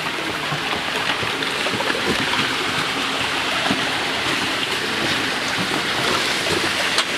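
Steady rush of glacial meltwater running through a hole in the glacier ice.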